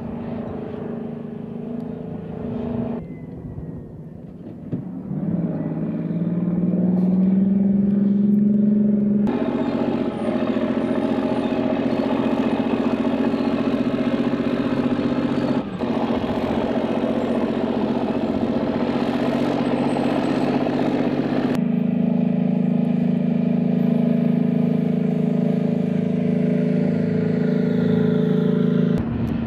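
Armoured military vehicles' engines running as they drive, with an engine revving up in pitch about five seconds in. The sound grows louder after that and changes abruptly several times.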